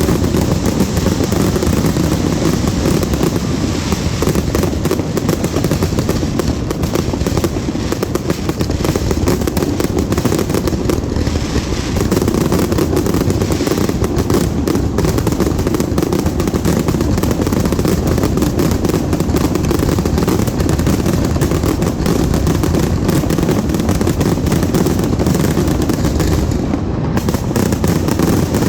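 A dense, unbroken barrage of fireworks: rapid overlapping bangs and crackling over a deep rumble, with no pause.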